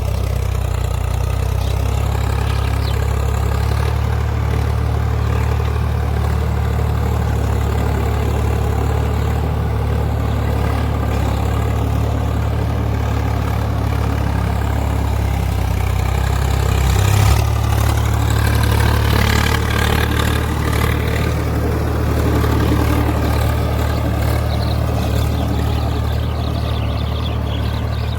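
Swaraj 855 FE tractor's three-cylinder diesel engine running steadily. A sharp thump comes about two-thirds of the way through, followed by a few seconds of louder noise.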